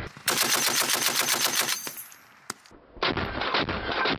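Browning M2 .50-calibre heavy machine gun firing rapid bursts. A burst of about a second and a half is followed by a short lull with one lone shot, then sustained fire resumes about three seconds in.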